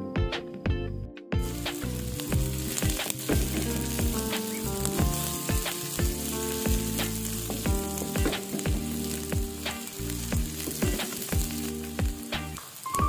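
Food sizzling as it fries in hot oil in a pan, a steady hiss that starts about a second in, over background music with a steady beat.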